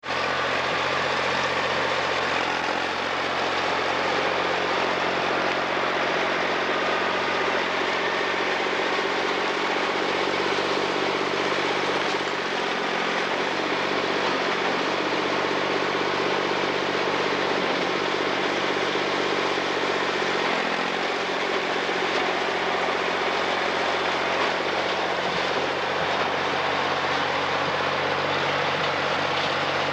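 Massey Ferguson crawler loader's engine running steadily at working revs. The engine note dips briefly twice, about twelve and twenty seconds in, as under load.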